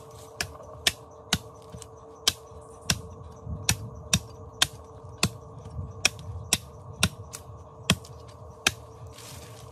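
A large knife chopping into a bamboo pole, sharp woody knocks about two a second that stop near the end.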